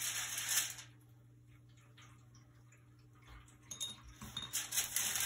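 Short spells of scratchy rustling with light clinks from brush-and-paper work: a paintbrush and a paper towel handled against the painting. One spell lasts about the first second and another fills the last second and a half.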